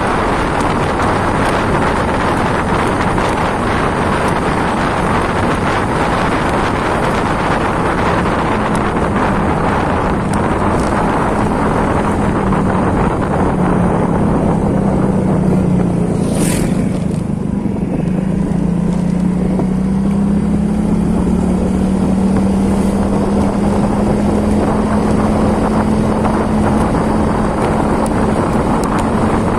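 Loud, steady noise with an engine's low, steady hum that comes in about eight seconds in and holds, and one brief high-pitched sound a little past halfway.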